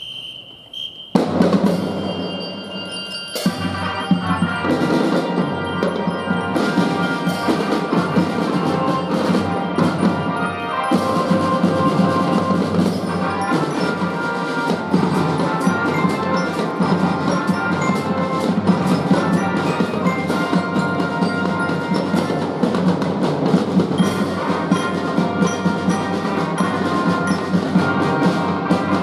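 Children's drum-and-glockenspiel marching band playing: a short high whistle tone sounds first, then the whole band comes in with a loud hit about a second in, with drums and glockenspiel playing on at a steady beat.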